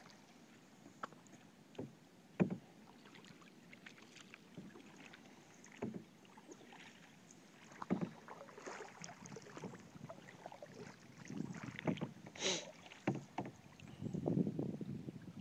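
A canoe being paddled: splashes and drips from the paddle in the water, with scattered short knocks against the canoe. The sounds get busier in the second half.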